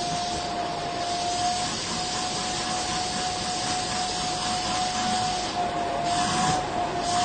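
A small motor running steadily: a constant whine over a rushing hiss, the hiss swelling briefly a few times near the end.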